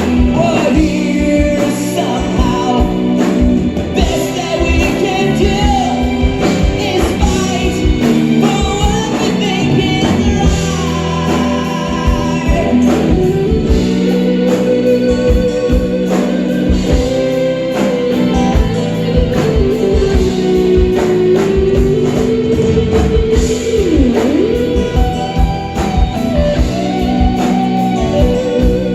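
Live rock band playing, with drums and a long, gliding lead melody.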